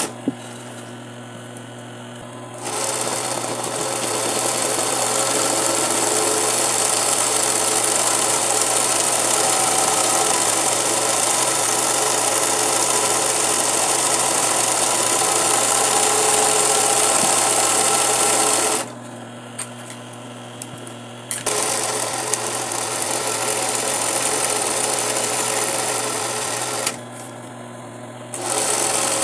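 Singer 20U industrial zigzag sewing machine running, stitching a zigzag satin stitch around the edges of a fabric appliqué. It sews in long spells and stops three times: just after the start, about two-thirds through and near the end. A steady hum carries on through the stops.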